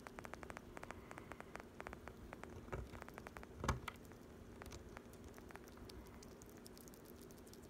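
Sugar glider crunching a treat: a quick, irregular run of small clicks and crackles for about three and a half seconds, with a single louder knock just after, then only faint background hum.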